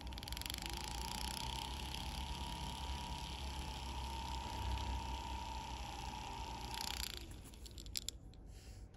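Small handheld rotary tool with a burr bit running with a steady whine while it carves hollows into a piece of hot-glue stick; the motor stops about seven seconds in, followed by a few light clicks.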